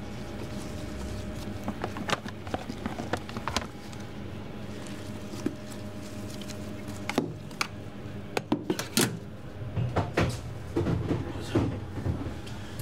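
Scattered knocks, clicks and clatter of things being handled, denser in the second half, over a steady mechanical hum.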